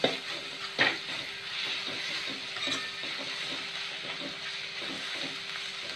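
Sliced onions and ginger-garlic paste sizzling in hot oil in a kadai, with a steel spoon scraping against the pan as they are stirred. A sharper scrape comes about a second in.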